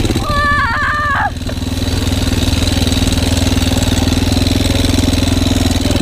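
ATV engine running steadily with an even pulsing exhaust note while riding over a leafy woodland trail. A short, high, wavering call sounds over it about half a second in and lasts about a second.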